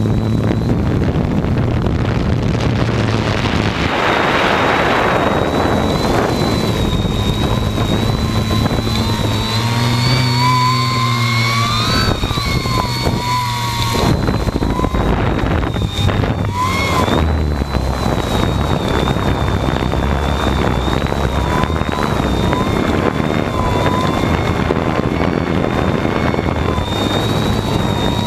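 Hexacopter's electric motors and propellers whining, picked up by the camera mounted on the craft, over a steady rushing noise. The pitch of the whine wanders up and down as the motors speed up and slow, with quick rises and falls about 12 and 17 seconds in.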